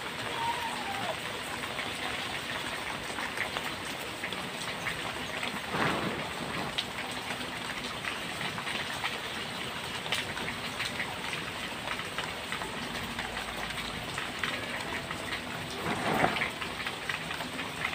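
Steady heavy rain falling on mud, puddles and hard surfaces, with two brief louder swells about 6 seconds and 16 seconds in.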